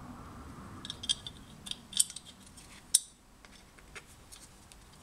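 Small metal parts clinking in the hands: the electroplated door striker plate, its gasket and bolts being handled, with a run of light, sharp clicks over the first three seconds.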